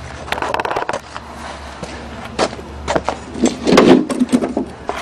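Clatter and knocks of a push lawnmower being handled and rolled on hard ground, with a louder run of knocks about three and a half seconds in.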